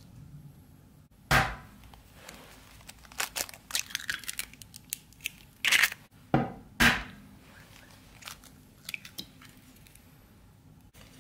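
Eggs being cracked into a bowl: a few sharp taps of shell against the rim, with the crackle of the shells breaking and being pulled apart in between.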